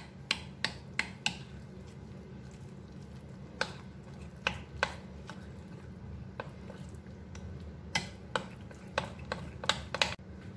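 A steel spoon stirs a thick water-chestnut-flour batter in a glass bowl, with wet mixing sounds and irregular sharp clinks as the spoon strikes the glass. A steady low hum runs underneath.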